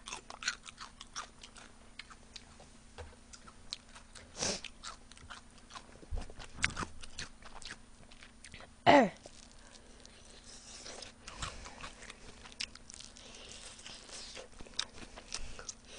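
Close-miked biting and chewing of spicy sauced fried chicken, with many small wet clicks throughout. A brief falling vocal sound about nine seconds in.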